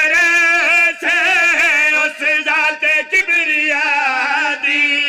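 A man's voice chanting a long, melodic Punjabi elegiac recitation. Each held note wavers with heavy vibrato, in several phrases broken by short pauses for breath.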